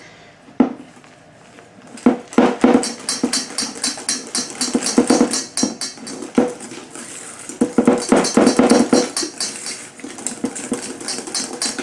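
Wire whisk beating a thick mascarpone cream in a stainless-steel bowl, loosening it with a little egg white. The wires make rapid clicking and scraping against the metal, starting about two seconds in and going on in quick strokes with short pauses.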